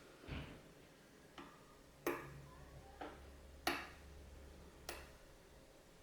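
Lock pick and tension wrench working in a Ruko Flex 2 padlock's core, giving about six faint, irregularly spaced clicks as the pins are worked under medium tension.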